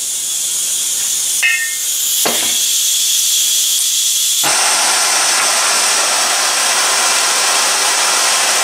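Propane torch on a one-pound cylinder hissing steadily; about four and a half seconds in the hiss turns louder and fuller and holds there. A brief squeak and a click come in the first half.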